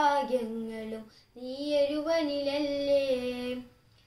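A boy singing a Malayalam Mappila song solo, unaccompanied. He sings two long held phrases with a short breath between them about a second in, and a pause near the end.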